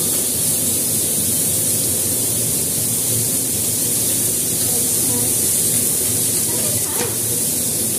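Sliced meat sizzling on an electric grill plate: a steady hiss over a low hum, with a single sharp click near the end.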